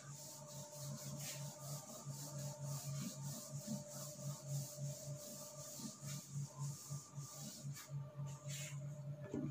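A whiteboard duster rubbing back and forth across the board, wiping off marker writing; faint.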